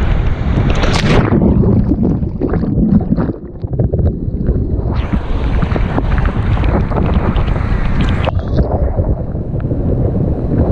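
Rushing white water of a river rapid, heavy with wind buffeting the microphone. The level dips for a moment about three and a half seconds in.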